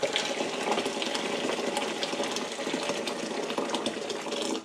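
Just-boiled water poured in a steady stream from an electric kettle into a stainless steel bowl; the pour stops abruptly near the end.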